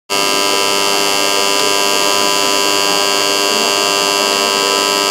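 Concert hall's start-of-performance buzzer sounding one long, steady electric buzz that cuts in abruptly, signalling that the concert is about to begin.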